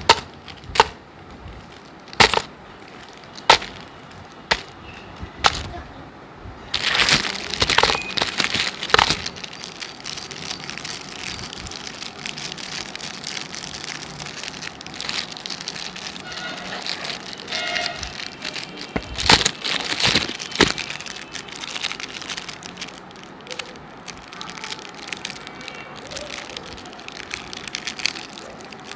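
Plastic-wrapped Sooper biscuit packets dropped one by one into a wooden tray, six sharp taps in the first six seconds. Then the wrappers are handled and crinkled close to the microphone, with louder crackling spells, and near the end a packet's wrapper is pulled open.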